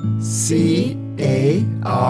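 A children's vocabulary jingle: a voice spells out the English word "carry" letter by letter, about one letter every half second, over a gentle guitar backing.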